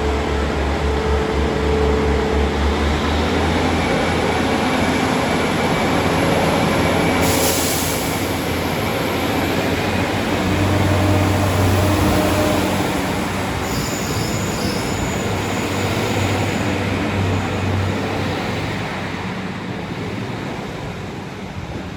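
A Class 150 Sprinter diesel multiple unit running past as it moves out of the station, with a steady low underfloor-engine drone, wheel and rail noise, and a brief hiss about seven seconds in. Thin, high wheel squeal comes in briefly around the middle, and the sound fades toward the end as the train draws away.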